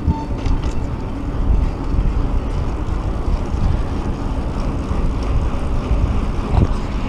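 Wind rushing over the camera microphone and a mountain bike's tyres rolling on pavement, a steady low rumble, with a short knock from a bump near the start and another near the end.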